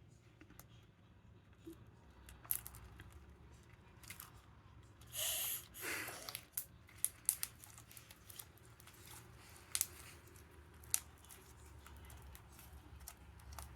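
Faint handling sounds of homemade slime being worked by hand to press out trapped air bubbles: scattered small clicks and squelches, with a louder rustle about five seconds in, over a steady low hum.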